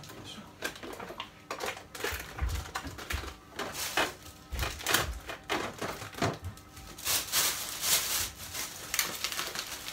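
Groceries being shuffled around inside an open refrigerator: an irregular run of clicks and knocks as packages and bottles are moved on the shelves and door bins, with a stretch of rustling packaging a few seconds from the end.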